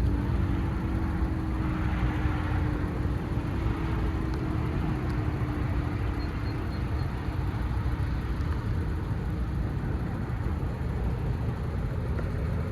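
Sterling M-10 electromechanical siren winding down at the end of its test: a low tone that slowly falls in pitch and fades out over the first several seconds, over a steady low rumble of street noise.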